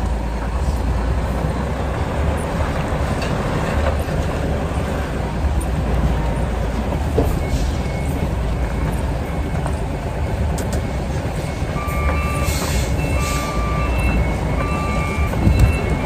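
Diesel engine of a tractor-trailer running at low revs while reversing, with heavy rain falling. About twelve seconds in, the truck's reversing alarm starts, a steady run of short two-tone beeps.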